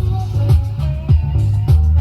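Music played back from a cassette tape on a 1979 National Panasonic RS-612US stereo cassette deck: a song with a strong bass line, guitar and a drum beat about every 0.6 seconds.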